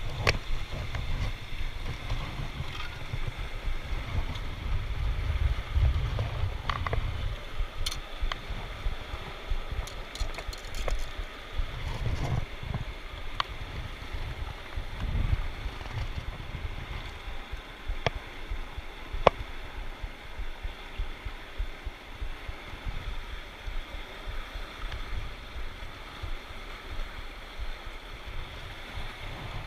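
Steady rush of flowing creek water, with wind buffeting the microphone as a low rumble during the first half. A few faint sharp clicks are scattered through it.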